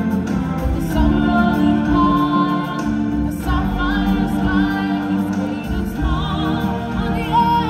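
Live stage-show music: singers holding long notes with vibrato, a choir-like blend of voices, over a full band accompaniment with steady bass.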